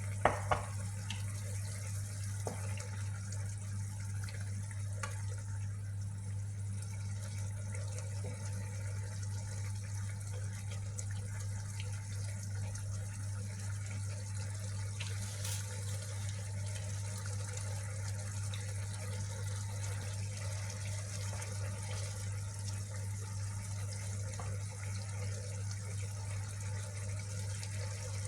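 Steady water-like hiss over a constant low hum, with one sharp click about half a second in.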